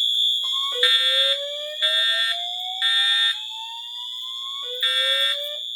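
Fire alarm system sounding in alarm. Horns blast in the temporal-3 evacuation pattern of three half-second blasts about a second apart, then a pause before the next group. Beneath them runs a slow rising sweep tone, over a steady high-pitched tone that starts the moment the system activates.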